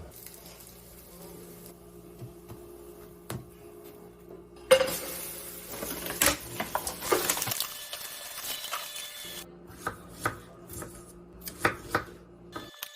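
Kitchen clatter: dishes and utensils clinking and knocking in a run of scattered small impacts, with one sharp knock a little over a third of the way in. A faint steady hum runs underneath and stops just before the end.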